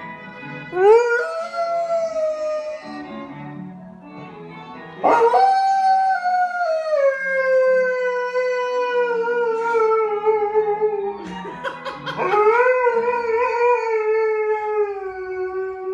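Alaskan Malamute howling along to music: three long howls, each rising quickly at the start, then held and sliding slowly down in pitch. The second, about five seconds in, is the longest.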